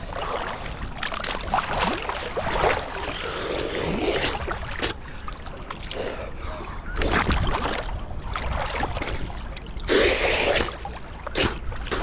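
Sea water sloshing and splashing around a camera held at the surface, rising and falling with the small waves, with a louder rush of splashing about ten seconds in.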